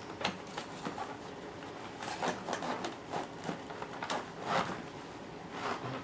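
Scattered light plastic clicks, taps and rustling as a vacuum brush roll with a new drive belt is handled and pushed into its slot in the plastic base of an upright vacuum cleaner.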